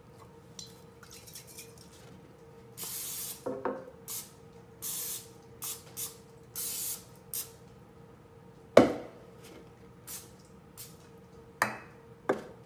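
Cooking oil spray hissing in several short bursts as a metal Pullman bread pan is greased, then the pan set down on a granite countertop with a sharp clunk, followed by two lighter knocks near the end.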